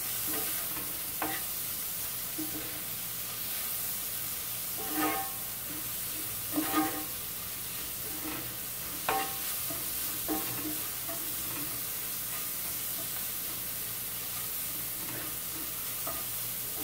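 Sliced onions frying with a steady sizzle in a skillet, stirred with a wooden spoon that knocks and scrapes against the pan now and then.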